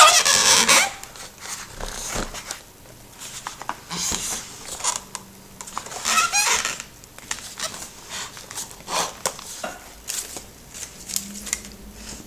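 Egg carton being handled and opened: scattered rustling, scraping and squeaky bursts with small clicks, loudest right at the start and again about six seconds in.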